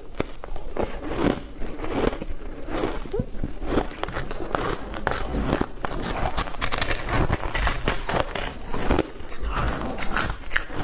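Hard ice being bitten and chewed: an irregular run of crisp crunches and scrapes.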